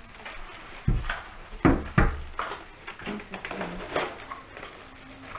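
Thumps and knocks of exercise-bike parts and styrofoam packing being handled and set down while unpacking from the shipping box. The three loudest come between about one and two seconds in, with lighter clicks and rustling around them.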